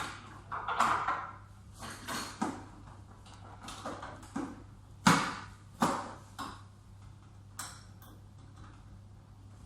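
Irregular clicks, taps and knocks of parts and tools being handled while an Omnilux medical light unit is put back together. The loudest two come about five and six seconds in.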